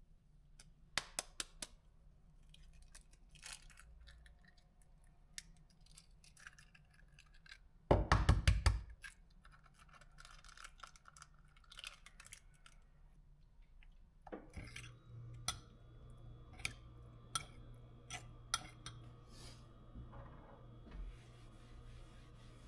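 Kitchen handling sounds: scattered clicks and clinks of dishes and utensils, with a loud rattle lasting about a second partway through. About two-thirds of the way in, a steady appliance hum with a faint whine starts and keeps running.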